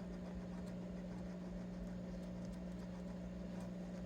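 Steady low electrical hum of room tone, with a few faint light ticks.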